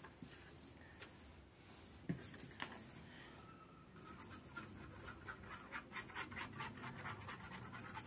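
Faint scratching of the tip of a liquid-glue squeeze bottle dragged across cardstock as it lays down wavy lines of glue. The scratching starts about four seconds in as quick, close strokes, with a few small clicks before it.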